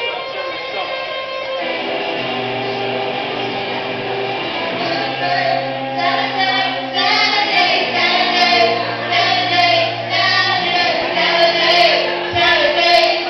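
A live band playing a song with singing: held chords at first, then a steady rhythm of accents picking up about six seconds in.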